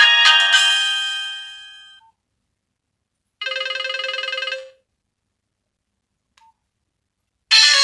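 Nokia 103 mobile phone ringtones played one after another: a melodic tune ends and dies away over the first two seconds, a short warbling tone sounds for about a second in the middle, and another tune starts near the end.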